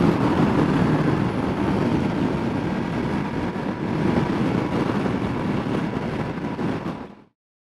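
Ducati Multistrada 1200S's 1200 cc twin running at a steady cruising speed, mixed with wind rush on the helmet-mounted microphone. The sound fades out quickly near the end.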